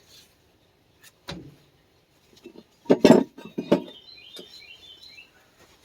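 Metal clanks and knocks of tools working a part loose on a tractor's front axle, the loudest about three seconds in. Small birds chirp briefly near the end.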